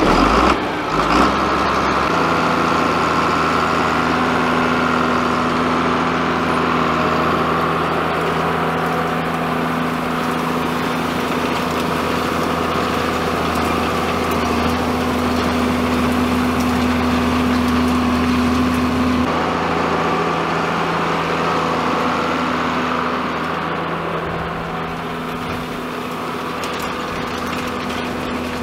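A John Deere 4450 tractor's six-cylinder diesel engine running steadily under load as it pulls a rotary hay rake across a hay field.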